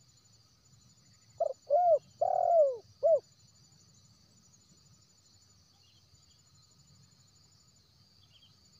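Spotted dove cooing: one phrase of four notes about a second and a half in, two short notes, then a long drawn-out falling one, then a short closing note. A faint steady high insect trill runs underneath.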